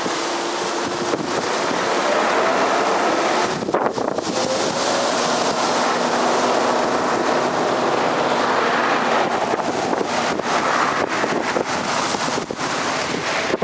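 Steady road traffic: cars passing on a busy road with a continuous tyre and engine hum, and a few faint gliding tones as vehicles go by. Wind buffets the microphone.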